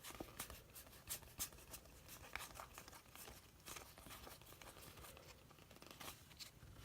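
Faint handling of trading cards: soft, irregular clicks and rustles as cards are slid apart and flipped one behind another.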